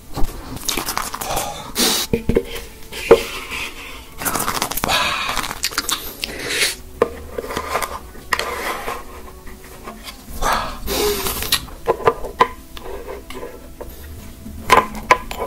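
Mukbang food and tableware sounds: a dense run of irregular crunchy bursts, sharp clicks and scrapes.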